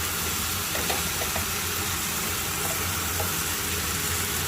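Pork belly, onion and green onion frying in a pan in soy-sauce seasoning: a steady sizzle with a few faint ticks of spattering.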